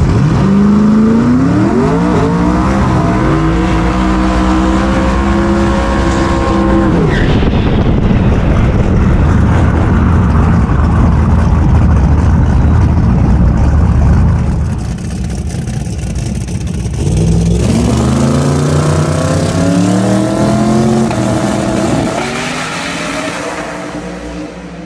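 Twin-turbo Chevy Nova drag car at full throttle, its engine note climbing in pitch in several rising runs and holding. It is followed by a loud noisy stretch without a clear note, then a second set of climbing runs, fading near the end.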